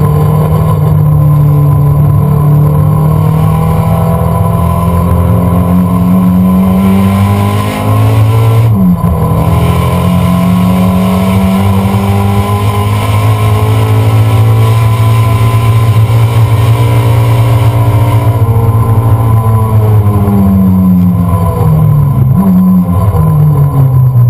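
Dodge Neon SRT-4's turbocharged 2.4-litre four-cylinder heard from inside the cabin under hard acceleration. Revs climb in third gear and drop at a shift to fourth about nine seconds in, then climb again. Near the end the revs fall off under braking, with a rev blip on the downshift back to third.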